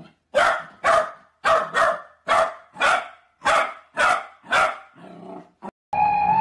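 Corgi puppy barking repeatedly: about nine short, sharp barks in quick succession, then a few quieter ones. Near the end a steady held tone cuts in.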